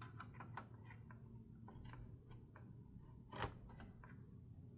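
Faint small clicks and taps of a RAM stick being handled and lined up over a motherboard's memory slot, with one sharper click about three and a half seconds in.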